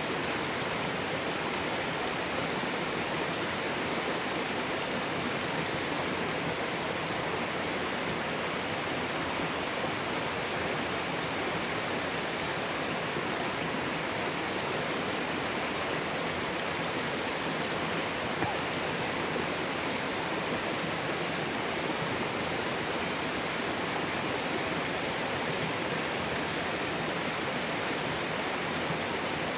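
Steady rush of flowing water, an even hiss with no breaks or changes.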